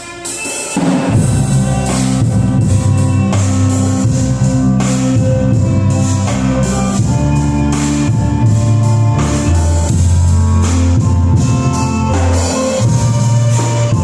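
Instrumental band music with a drum kit keeping a steady beat over bass and guitar; the full band comes back in about a second in after a brief dip.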